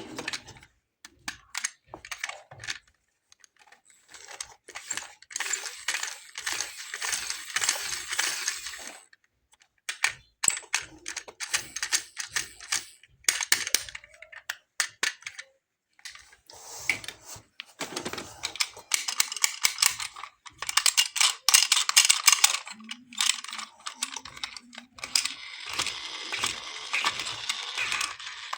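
Small plastic and metal toy cars being handled and unboxed: rattling, clicking and light clattering in several bursts, with short pauses between them.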